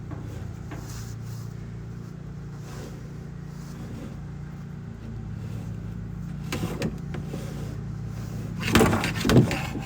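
A steady low machine hum, with brief louder rustling or scraping noises about six and a half seconds in and again near the end.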